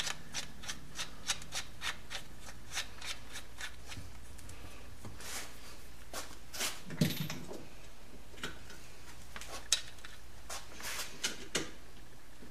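Scattered light metallic clicks and taps of tools and small engine parts being handled, with one duller knock about seven seconds in.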